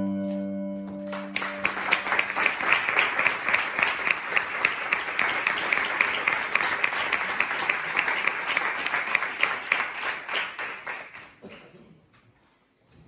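The last piano notes ringing out, then an audience applauding for about ten seconds, tapering off and fading near the end.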